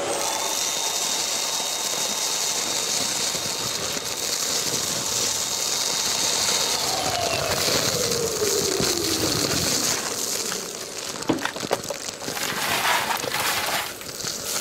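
Kärcher wet and dry vacuum cleaner with a wide bulk-waste nozzle running at full suction as it picks up loose debris: a steady rush of air over a motor whine. The whine drops in pitch about halfway through, and near the end debris clatters and crackles through the nozzle and hose.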